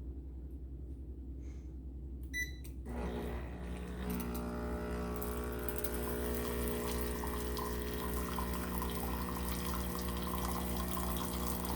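Wirsh Home Barista Plus espresso machine: a short beep about two and a half seconds in, then its pump starts and hums steadily with a hiss of water flowing out through the steam wand as the wand is flushed.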